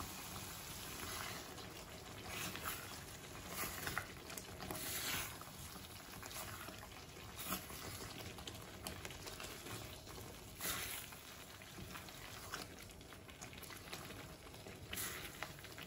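Creamy chicken curry simmering in a nonstick pan while a spatula stirs it: soft bubbling with brief stirring and scraping sounds at irregular moments, every second or two.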